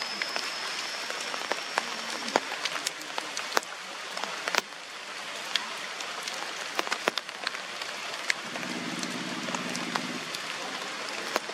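Steady rain falling on forest foliage, a constant patter with many single drops landing as sharp taps.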